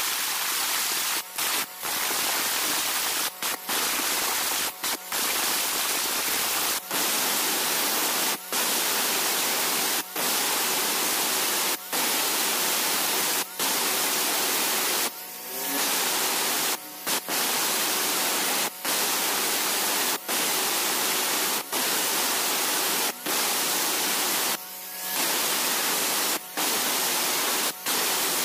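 Electric angle grinder with an abrasive disc cutting into hard river stone, notching the rim of a stone mortar: a loud, steady, gritty hiss. It breaks off briefly about every second and a half, with two longer breaks.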